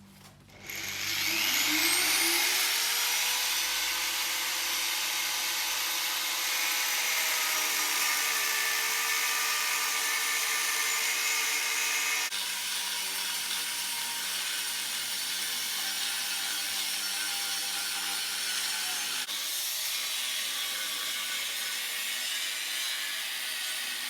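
Electric power saw with a steel blade spinning up with a rising whine, then running steadily while cutting through an aluminium alloy wheel, the tone shifting a little as it bites.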